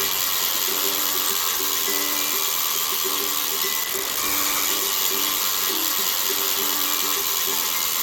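Passing train at a railroad crossing: a steady rushing wheel-and-rail noise, with a low two-note tone repeating in short beats underneath.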